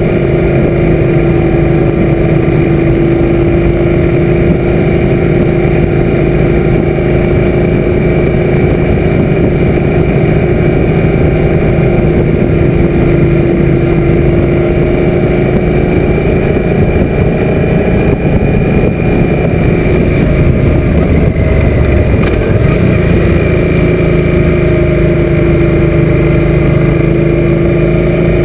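Suzuki M800 V-twin motorcycle engine running steadily at cruising speed, with wind rush over the on-bike camera. The engine note changes briefly about three-quarters of the way through, then settles again.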